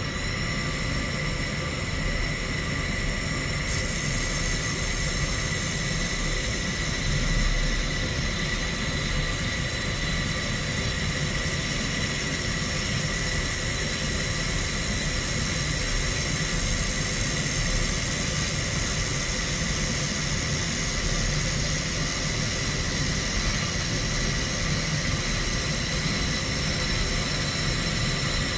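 Handheld laser welder brazing silicon bronze wire onto galvanized steel under nitrogen shield gas: a steady machine hum with several fixed whining tones. A high hiss comes in about four seconds in and holds steady.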